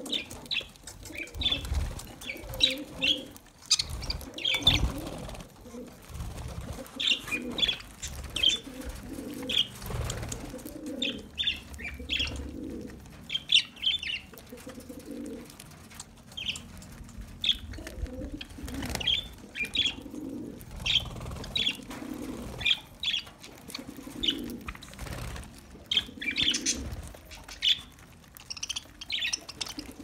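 A flock of budgerigars chirping and chattering, short high chirps coming thick and fast, with wings fluttering now and then.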